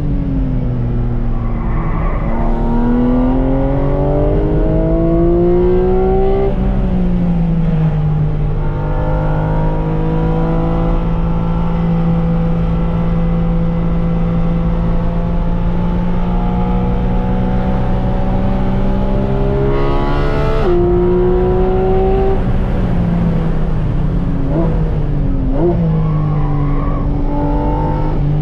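Porsche 718 Cayman GT4 RS's 4.0-litre naturally aspirated flat-six on a hot lap, heard from inside the cabin. The revs climb and fall back with the gear changes, then hold one steady pitch for about twelve seconds. A sharp crack comes about twenty seconds in, and near the end the revs jump in a few quick, short rises.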